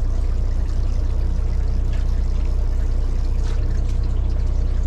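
Fishing boat's engine running with a steady low hum, mixed with the constant rush and splash of water along the hull.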